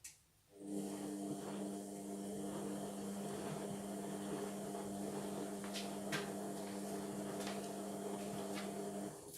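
Indesit washing machine mid-cycle: a click, then a motor hums steadily for about nine seconds with a few faint ticks before cutting off.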